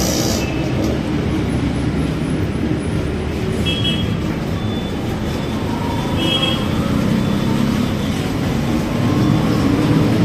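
Steady roadside traffic noise: the running engines and tyres of passing road vehicles, including heavy ones such as buses, as a continuous low rumble.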